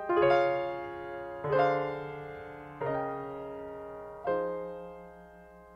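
Background piano music: slow chords struck about every one and a half seconds, each left to ring and fade, dying away near the end.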